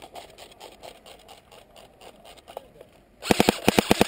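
Airsoft rifle firing a rapid burst of about eight shots, roughly ten a second, starting about three seconds in.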